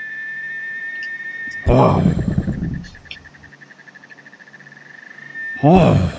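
Steady, high cricket-like chirring, broken twice by loud animal-like vocal calls: one about two seconds in and a second near the end.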